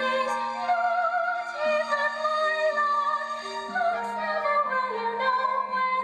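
A young female voice sings a lyrical stage-musical song in a high, operatic style with vibrato, over accompaniment that holds long low notes changing about once a second.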